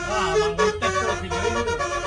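A tune played on a bus's multi-trumpet Basuri telolet air horns, held notes changing pitch in quick steps.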